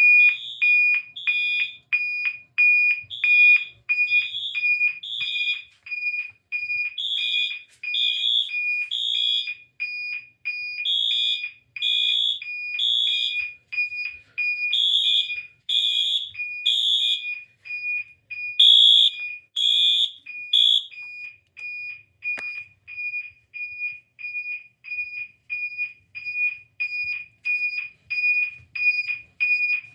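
Two fire alarm signals sounding together: a Wheelock MT horn on code 3, bursts of three horn blasts with a pause between groups, and a second multitone signal on a 2400 Hz interrupted tone, beeping about twice a second and the louder of the two. About two-thirds of the way through the code-3 horn stops, followed by a click, leaving the interrupted tone sounding alone.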